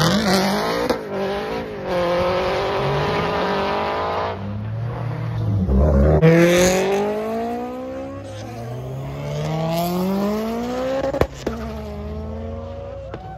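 A Subaru BRZ and then a Subaru WRX accelerating hard away, their flat-four engines revving up through the gears with pitch rising again and again. Another car follows, with a single sharp crack late on.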